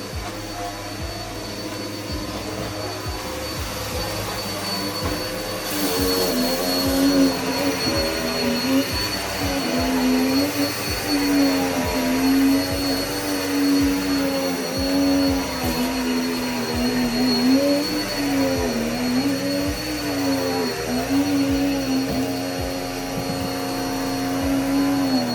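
Vacuum cleaner running with a steady high whine, its motor pitch wavering up and down about once a second. It gets louder about six seconds in.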